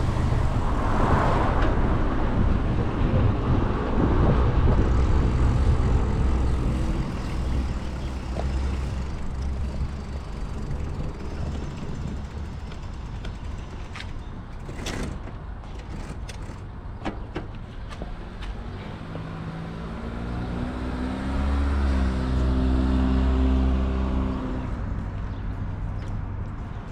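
City street traffic heard while riding a bicycle: a steady rumble of passing cars and trucks, with a large vehicle's engine hum loudest about twenty seconds in. A few sharp clicks come near the middle.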